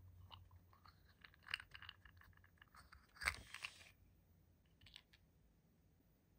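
Faint handling of a toy and its packaging: scattered light clicks, scrapes and crunches, with one short crinkly rustle about three seconds in and a couple of clicks near five seconds.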